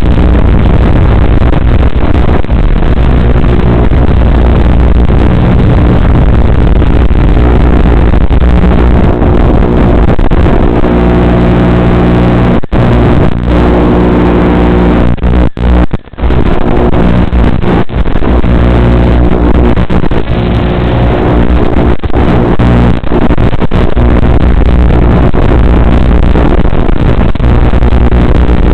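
Tiny whoop quadcopter's brushed motors buzzing loudly as a steady stack of tones that shift in pitch with the throttle. The buzz drops out briefly around sixteen seconds in, when the drone crashes into a sink, then comes back as it is flown out.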